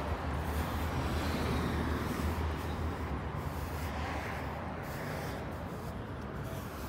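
Steady roadside street noise: a low rumble with hiss throughout and no distinct single event.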